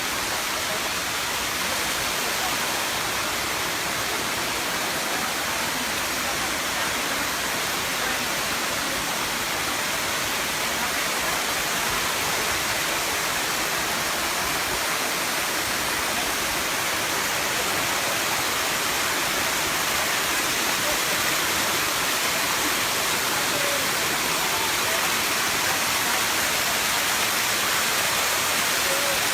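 Waterfall rushing steadily: water cascading down the seventh tier of Erawan Falls, a constant even roar of falling water.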